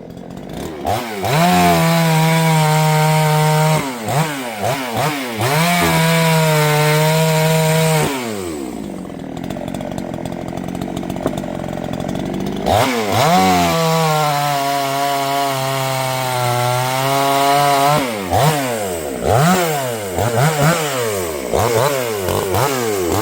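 Gas chainsaw revved up to full throttle and held there for several stretches of a few seconds, settling back to a lower idle in between, with a string of quick throttle blips near the end.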